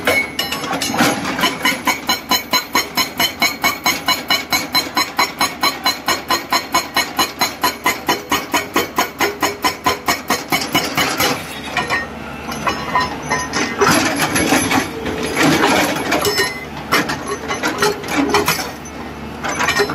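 Excavator-mounted SHS8 hydraulic breaker hammering rock, a fast, even beat of about four to five blows a second. About eleven seconds in the beat breaks up into an irregular clatter of hammering and machine noise.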